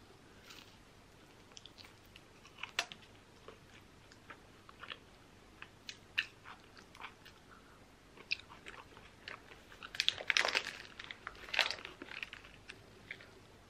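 Close-up eating sounds: soft chewing clicks of coleslaw, then louder crinkling and crunching around ten to twelve seconds in as a burger in its paper wrapper is bitten.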